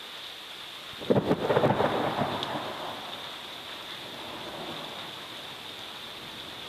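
A sudden loud crack of thunder about a second in, crackling for about a second and then rumbling away, over steady rain.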